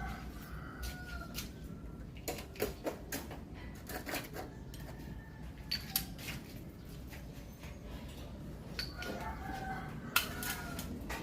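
A rooster crowing in the background, once at the start and again near the end, over scattered light clicks and taps of hand work on the engine.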